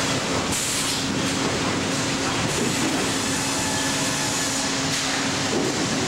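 Sawmill machinery running: a loud, steady industrial din of log and board conveyors and chains, with a constant hum underneath and a short hiss about half a second in.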